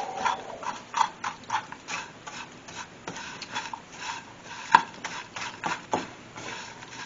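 Plastic spoon stirring crushed, buttered crackers in a frying pan: irregular scraping and clicking strokes several times a second, with one sharper knock a little under five seconds in.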